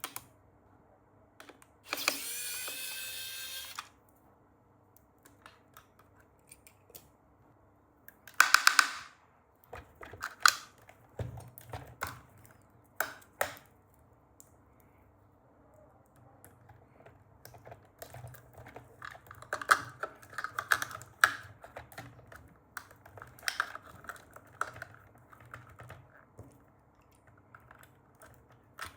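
Unboxing handling sounds: irregular clicks and taps of toys and their plastic and cardboard packaging being handled. There is a loud rasping noise about two seconds in that lasts nearly two seconds, and a shorter loud one near nine seconds.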